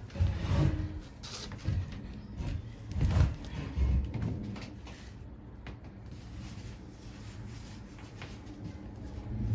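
Hand tools and small metal parts being handled while a lawnmower carburetor is taken apart: a few knocks and clunks in the first four seconds, then faint scattered clicks.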